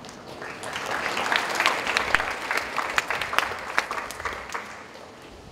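Audience applauding, swelling up about half a second in and dying away near the end.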